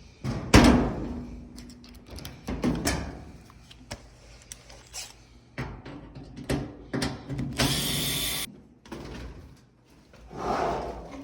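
Knocks and clunks of a clothes dryer's drum baffle being worked loose and popped off, with a brief harsh noise about three quarters of the way in.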